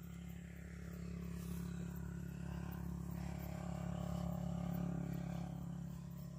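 Car engine idling: a steady low hum that swells slightly around the middle and eases off again.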